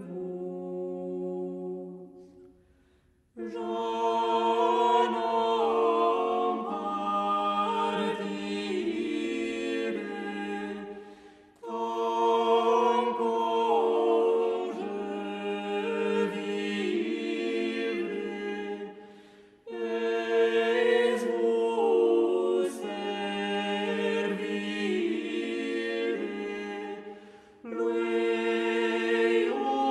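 A vocal ensemble singing an anonymous French chanson a cappella, in several parts at once. The singing comes in phrases of about eight seconds, each separated by a brief pause.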